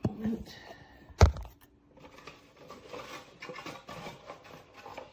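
A sharp knock about a second in, then a run of small scraping, rustling and clicking sounds as a replacement bag is worked by hand into the bag compartment of a Kenmore BU4050 upright vacuum.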